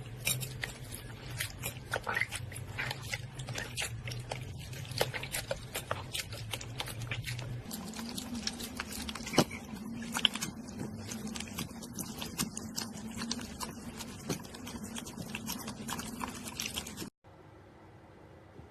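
Slime being squished and worked by hand: a dense run of small wet clicks and crackling pops over a low steady hum, with a change of clip about eight seconds in. It all stops suddenly near the end.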